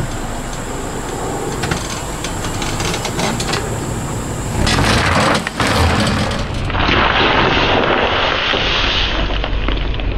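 Car tyre rolling slowly over gravel with crackles, then a plastic bottle of water bursting under it and water spraying out with a loud hissing rush.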